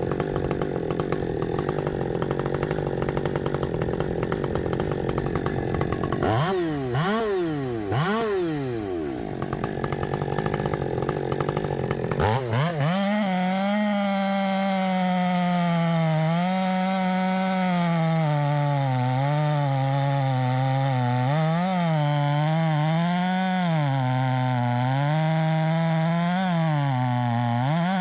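Husqvarna 564XP 60cc two-stroke chainsaw with a 32-inch bar working under load at first. About six seconds in it is revved up and down a few times, and from about halfway on it runs at high revs, its pitch wavering up and down.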